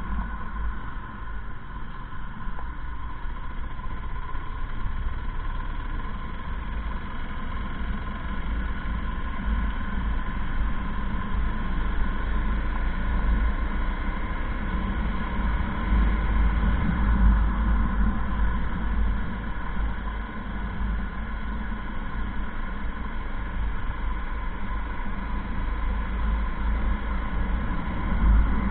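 Riding noise on a moving motorcycle at steady road speed: the engine's even hum under a heavy wind rumble on the microphone, swelling slightly now and then.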